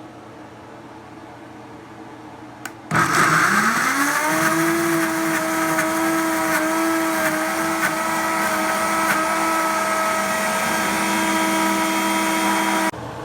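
A small electric motor switched on with a click, its whine rising for about a second and a half, then running steadily before stopping suddenly near the end.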